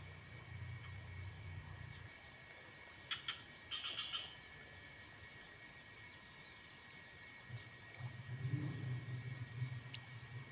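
Steady, high-pitched insect chorus, with a cluster of short chirps about three to four seconds in. A low hum is there in the first two seconds and returns past the middle.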